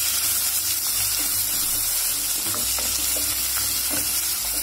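Freshly chopped onion sizzling in hot oil with cumin and mustard seeds, stirred with a spatula in the pot, with a few faint scrapes. This is the first frying of the onion for a masala base.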